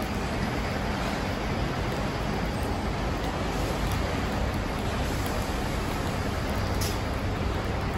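Steady outdoor ambience at a bus stop: a continuous hiss over a low rumble, with no distinct events.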